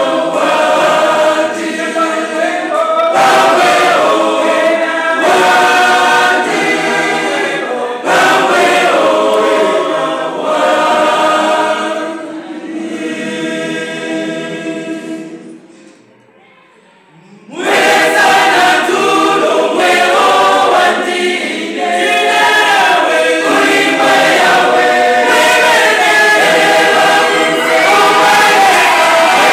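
Church choir of women's voices singing unaccompanied in phrases. Just past the middle the singing dies away for about two seconds, then comes back in full.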